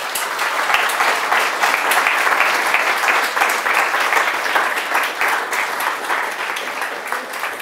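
Audience applauding: many people clapping at once in a dense, steady patter that starts at once and tapers off near the end.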